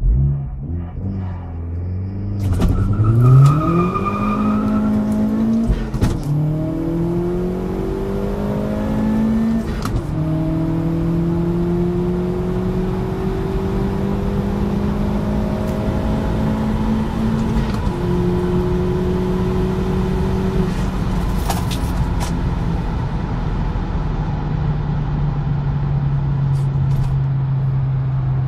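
Unitronic-tuned 1.8-litre turbocharged four-cylinder of a modified VW Golf GTI Mk4 accelerating hard, heard from inside the cabin. The engine note climbs through each gear and drops sharply at four upshifts, then holds steadier at high speed.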